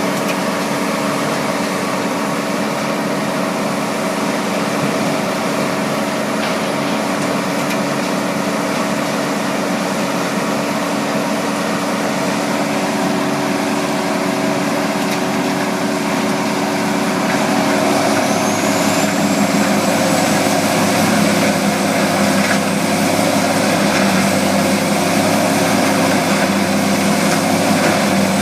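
Vermeer HG8000 horizontal grinder running steadily with a deep engine drone. About two-thirds of the way through it gets louder and a high whine rises in pitch and then holds.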